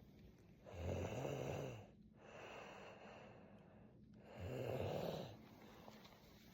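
A person snoring while dozing: two loud snoring breaths in, about three and a half seconds apart, with a softer breath out between them.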